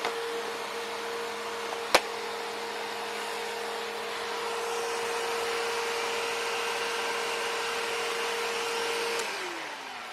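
Bagless vacuum cleaner running with a steady motor whine, with one sharp click about two seconds in. Near the end it is switched off and the whine falls in pitch as the motor spins down.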